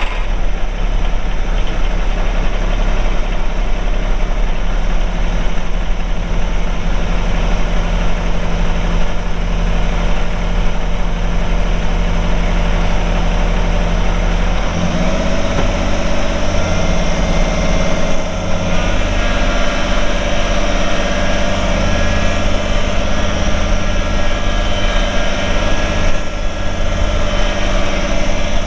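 Kubota compact tractor's diesel engine running steadily at idle, then throttled up about fifteen seconds in, settling at a higher, steady engine speed.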